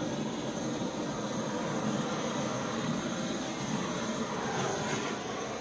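Handheld gas torch flame hissing steadily as it is passed over wet acrylic paint to bring up cells.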